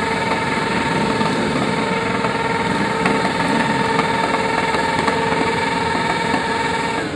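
Sport motorcycle engine held at high, steady revs during a burnout, the rear wheel spinning against the tarmac. The revs drop away right at the end.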